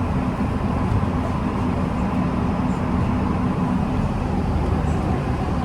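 Steady low rumble of a car on the road, engine and tyre noise as heard from inside the moving vehicle.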